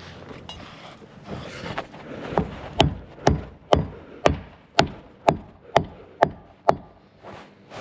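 Nails being driven into timber wall framing to fix the bracing: a steady run of about ten sharp strikes, roughly two a second, starting about two and a half seconds in.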